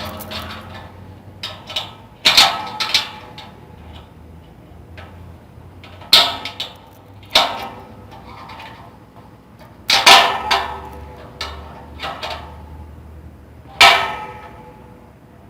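Metal padlock being worked open and shut: a series of sharp metallic clicks and clanks from the shackle and body, a few seconds apart, each with a short ringing tail.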